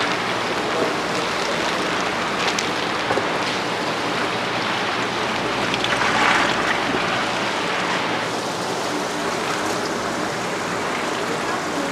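Water running and splashing steadily into fish acclimation tubs fed by hoses, with a steady low hum underneath. The splashing swells briefly about halfway.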